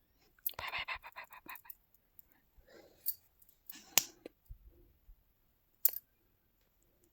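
A quick rattling run of about a dozen clicks, then a few separate sharp clicks and taps.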